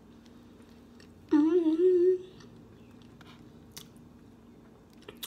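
A woman hums a short wordless note, about a second long, a little over a second in, between soft chewing of food with a few faint mouth clicks.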